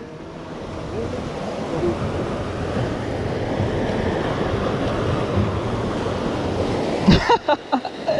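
Waves washing and breaking against the rocks of a seawall, heard as a steady rushing wash with wind buffeting the microphone. A few sharp knocks come about seven seconds in.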